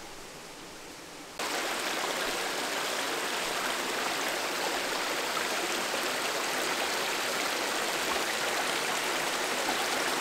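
Shallow mountain stream rushing and splashing over rocks, a steady even rush that comes in suddenly about a second in, after a quieter faint hush.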